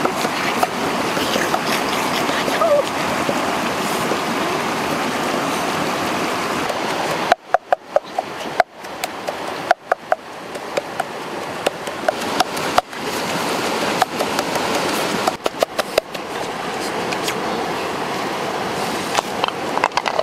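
Rushing water of a rocky stream, steady for the first seven seconds. Then a run of sharp knocks and clicks over quieter water, and near the end a few strikes of a pestle in a mortar.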